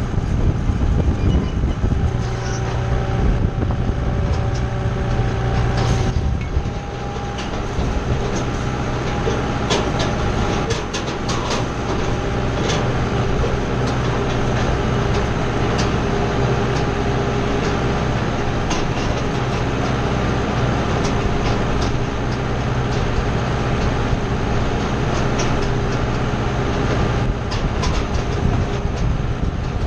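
Kubota tractor's engine running steadily while towing a wheel hay rake, with scattered clicks and rattles from the rake and hitch from about 9 seconds in. The engine drops slightly in level about 7 seconds in.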